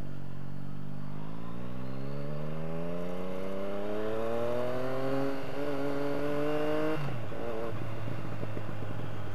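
Yamaha FZ-09's three-cylinder engine accelerating on the road. Its pitch climbs steadily for about seven seconds, with a short break near five seconds. Then it drops abruptly as the throttle closes and settles to a low steady note.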